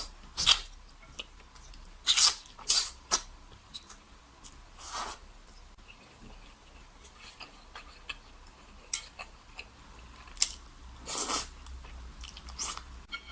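Close-miked eating of wide oil-splashed noodles: several short, loud slurps, two of them close together about two seconds in and another near the end, with quieter chewing and mouth clicks between.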